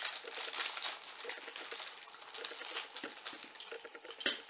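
Hands handling and rustling metal detector parts, with small irregular clicks and one sharper click near the end.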